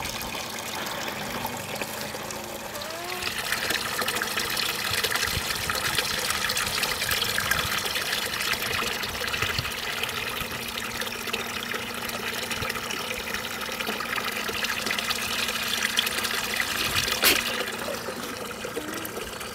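Water running steadily from a hose, trickling and splashing.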